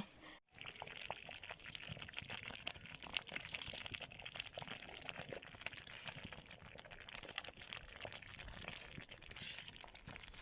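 Pot of water and maize flour cooking for ugali, giving off a faint, steady fine crackling and bubbling.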